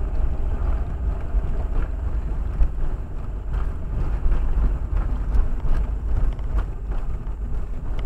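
Steady low rumble of a car driving, engine and road noise heard inside the cabin, with a few faint clicks.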